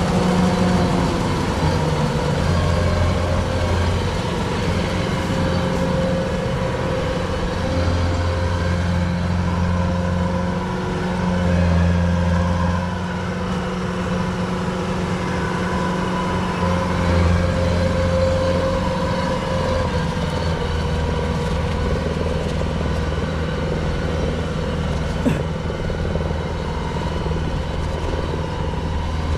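Kubota tracked combine harvester running as it works the field: a steady engine and machinery drone with a few held tones in it, swelling and easing slightly in level. A single sharp click comes near the end.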